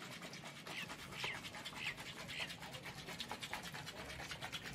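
Shaker bottle being shaken to mix a powdered coffee shake with water: a fast, even rattle that keeps going, with a few short high squeaks in the first half.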